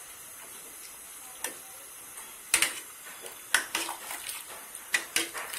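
A metal ladle clinking against a steel cooking pot while hot water is spooned over a whole cauliflower: a handful of sharp metal clinks, starting about a second and a half in, over a low steady hiss.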